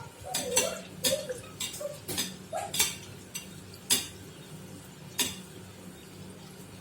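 Kitchen utensils knocking and clinking against a pan or dishes: about ten sharp knocks in the first five seconds, with a low steady hum underneath.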